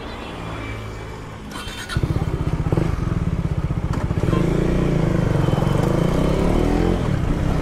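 KTM RC 390's single-cylinder engine idling, then getting much louder about two seconds in as the motorcycle pulls away and rides, its revs rising and falling.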